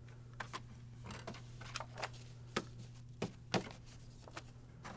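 Light clicks and taps of the printer's plastic paper input tray and a paper stack being handled while paper is loaded. A few sharper clicks come about halfway through, over a faint steady hum.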